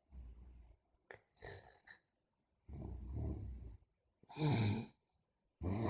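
Snoring: a series of rasping, snorting breaths, five or six in a row, each about a second or shorter, growing louder toward the end.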